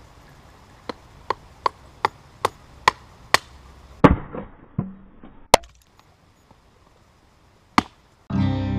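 Axe chopping wood on a stump to split kindling: a run of about seven quick, evenly spaced strikes, then a few heavier, more widely spaced chops.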